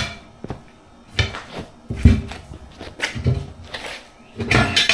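Tire irons levering a trailer tire's bead off its rim during a manual tire change: a series of knocks, thuds and metal scrapes, about five separate strokes.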